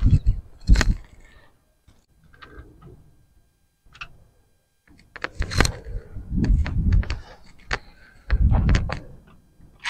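Metal clicks, clinks and light knocks of a timing-case chain and its plastic tensioner rail being worked into place by hand on a Volkswagen GTI engine. There are a couple of clicks at the start, then a busier run of clicks with dull thumps from about five seconds in.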